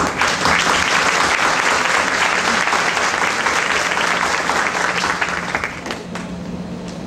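Audience applauding, fading out about six seconds in.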